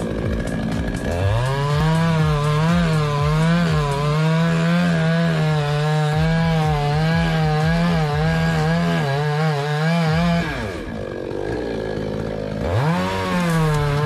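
Chainsaw revving up about a second in and running at full throttle, cutting into the base of a coconut palm trunk, its pitch wavering under the load. It drops back to idle after about ten seconds and revs up again near the end.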